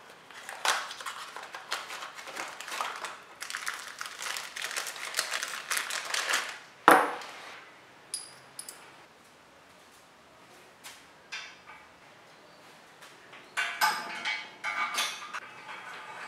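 Clear plastic packaging crinkling as a bicycle headset part is unwrapped by hand, ending in one sharp knock about seven seconds in. A small metal part then rings briefly, and near the end there is more clicking and rustling of parts.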